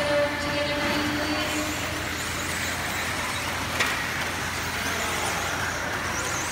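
Electric RC buggies with 17.5-turn brushless motors racing on an indoor dirt track: thin, high motor whines rise and fall over a steady hiss of tyres and drivetrains. A steady droning tone fades out about two seconds in, and there is one sharp knock a little before four seconds.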